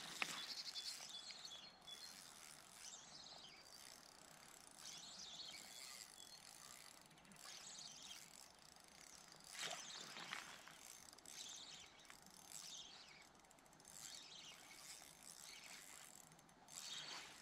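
Faint ratcheting clicks of a Shimano Sephia 3000S spinning reel as the line is worked under the load of a large hooked chub.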